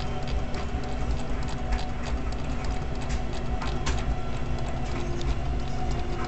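Irregular light clicking over a steady low rumble and faint hum.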